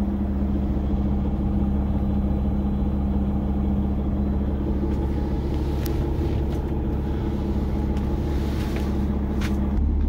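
Cummins X15 diesel engine of a Peterbilt 389 idling steadily, heard from inside the cab, with a couple of light clicks in the second half.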